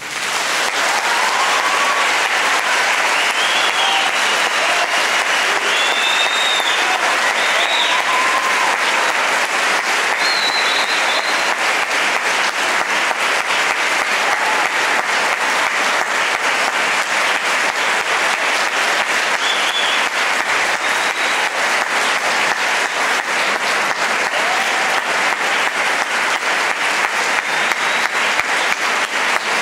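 A concert audience applauding at the end of a band's performance, a dense steady clapping with a few cheers in the first half. Near the end the clapping falls into a steady beat.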